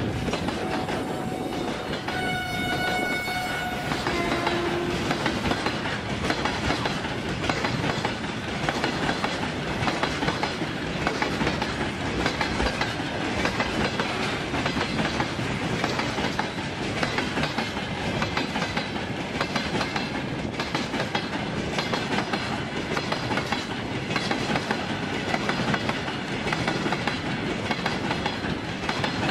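Freight train of loaded flatcars rolling past: a steady rumble and clatter of steel wheels over the rails. A high-pitched horn sounds for about two seconds near the start.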